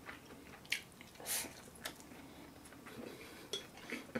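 Wooden chopsticks clicking and scraping against a ceramic rice bowl and plate as a meal is eaten: a handful of light, separate clicks.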